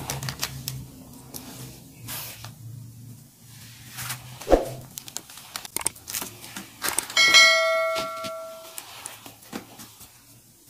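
Rustling and crinkling of a plastic noodle packet as it is handled and emptied. About seven seconds in there is a click and then a bell-like chime that rings for about a second and a half: the sound effect of a subscribe-button animation.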